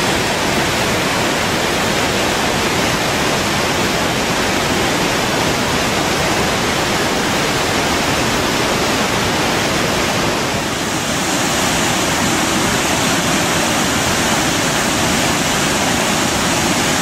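Morkill River waterfalls and whitewater rushing steadily. About eleven seconds in, the sound dips briefly and comes back brighter and hissier.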